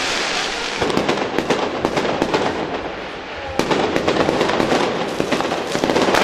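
Aerial fireworks bursting overhead: a dense run of bangs, pops and crackles, easing briefly about three seconds in before starting up again.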